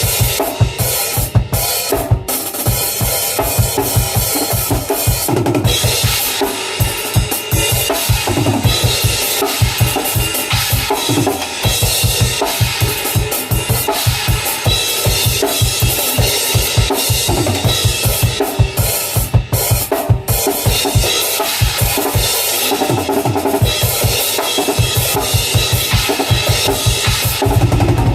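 Drum kit being played: rapid bass drum strokes under snare hits and ringing cymbals, getting louder near the end.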